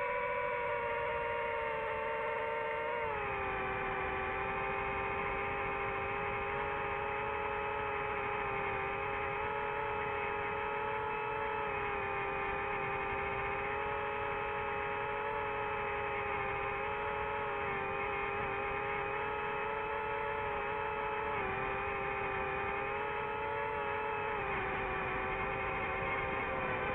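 DJI FPV drone's motors and propellers whining steadily in flight, a hum of several tones together. The pitch drops about three seconds in and shifts slightly twice near the end.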